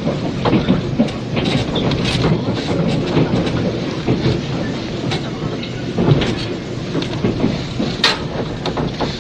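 Cabin running sound of a 485 series limited express electric train, from an old cassette recording: a steady rumble of the moving car with irregular clicks and knocks from the wheels and rail joints.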